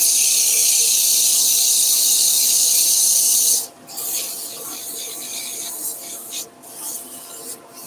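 100-grit abrasive paper held against a spinning wooden workpiece on a wood lathe, sanding it with a steady hissing rasp. For about the first three and a half seconds it is loud and even, then it turns lighter and uneven, with short breaks as the paper is lifted and moved.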